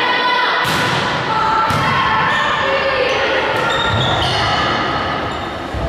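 Volleyball being served and struck during a rally in a large gym hall: several sharp ball hits, the first about half a second in, each echoing off the hall, with players' voices calling throughout.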